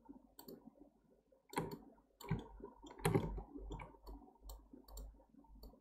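Computer mouse clicking: a dozen or so sharp, irregularly spaced clicks, with a few duller knocks among them.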